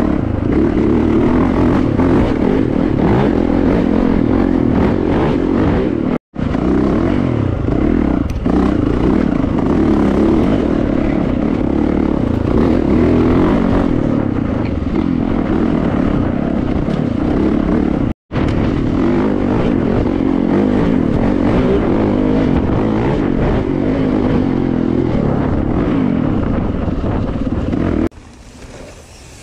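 Four-stroke dirt bike engine running under way, heard from a helmet-mounted camera. The sound cuts out for an instant twice, about 6 and 18 seconds in. It drops away about a second before the end.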